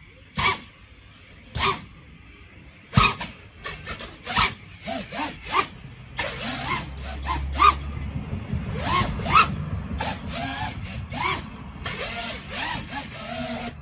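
FPV quadcopter's brushless motors revving in short bursts as it lifts off and hovers, each throttle blip a quick rising-and-falling whine. A low rumble joins in from about six seconds in. The quad is drenched and still flying: its waterproof coating is holding.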